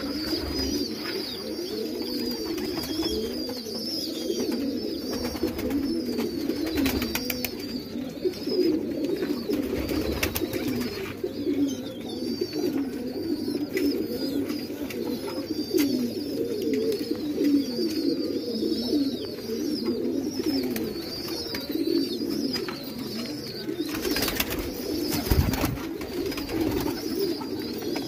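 A flock of domestic fancy pigeons cooing continuously, many low coos overlapping into a steady rolling murmur.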